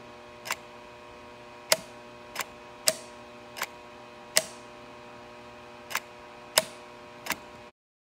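Sharp, irregularly spaced clicks, about one a second, over a steady electrical hum from a model train layout where an American Flyer 977 caboose sits on the track. The sound cuts off suddenly near the end.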